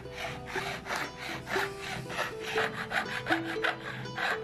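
Hand file rasping back and forth across a silver fitting, about three strokes a second, over soft background music with held notes.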